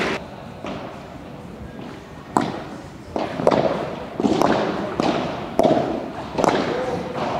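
Padel rally: a ball struck by solid padel rackets and bouncing on the court, giving sharp pops about once a second that echo in a large indoor hall. The hits begin about two seconds in, after a quieter start.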